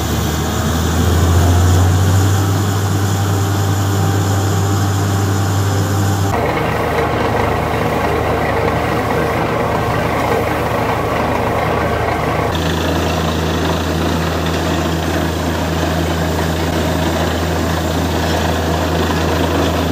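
Borewell drilling rigs running, a loud steady engine-and-compressor drone with a deep hum under it. The sound changes abruptly twice, about six and twelve seconds in, as one rig gives way to another.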